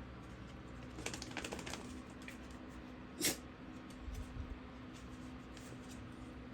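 Puppies moving about: a run of light clicking and scuffling about a second in, one sharp click near the middle, then a few soft thumps.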